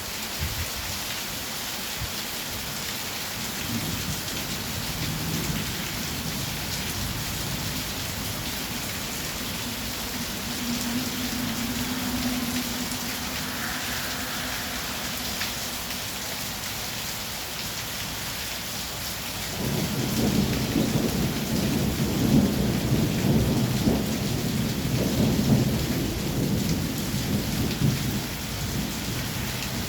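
Heavy rain falling steadily with a constant hiss. A faint low rumble of thunder runs through the first half, then a louder, longer rumble of thunder starts about two-thirds of the way in and lasts several seconds.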